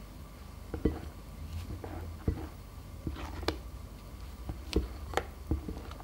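A spatula folding thick cream-cheese filling in a glass mixing bowl: soft squishing, with several sharp taps of the spatula against the glass.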